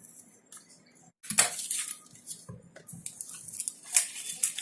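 Plastic shrink wrap being torn and peeled off a smartphone box, crinkling and rustling in irregular bursts from about a second in.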